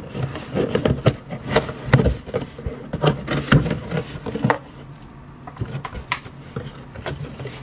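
A cardboard shipping box being opened and unpacked by hand: irregular knocks, crackles and rustles of cardboard and packaging, busiest in the first few seconds.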